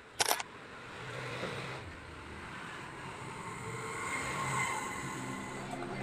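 A single sharp click about a quarter second in, then low, steady background noise.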